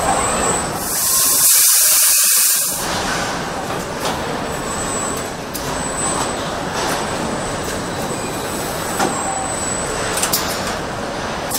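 Car assembly-line machinery running with a steady mechanical din. A loud hiss lasts about two seconds near the start, a faint high whine comes and goes, and a few sharp clicks come near the end.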